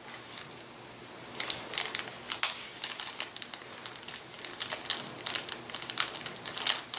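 Small clear plastic bag crinkling in the hands as it is opened and rummaged through to get a small part out, in irregular crackles starting about a second in.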